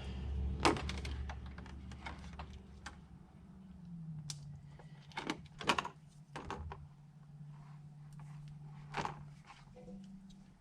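Scattered light clicks and taps of a razor blade and a thin Lexan polycarbonate sheet being handled and worked, over a steady low hum.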